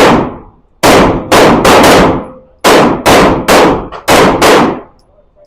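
Rapid handgun shots, about ten in all, fired in quick groups of two to four, each sharp crack trailing off briefly.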